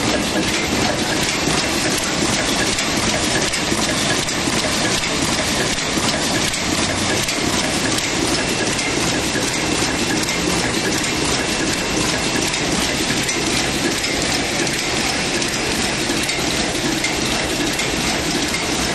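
High-speed adhesive auto bagging machine running, a steady, dense mechanical clatter.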